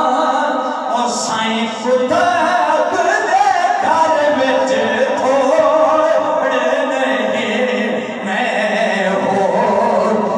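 A man singing unaccompanied into a microphone, long melodic lines held and ornamented in a chanting style.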